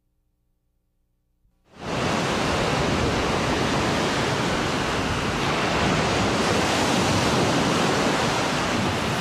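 Ocean surf washing onto a sandy beach: a steady rush of waves that fades in out of silence about two seconds in.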